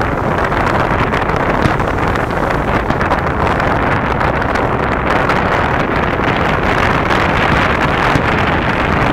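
Steady, loud wind noise buffeting the microphone, with no distinct firework bursts standing out.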